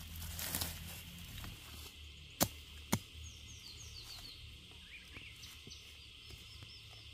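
Rustling of dry leaf litter, then two sharp chops of a machete blade striking into the forest floor, about half a second apart.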